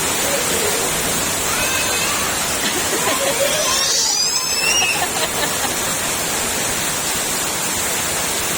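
Heavy rain pouring in a steady hiss, with a child's high squeal about four seconds in.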